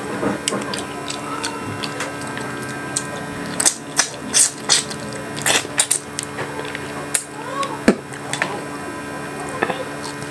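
Close-miked eating sounds: wet chewing and sharp lip-smacking clicks, over and over, under a steady low hum.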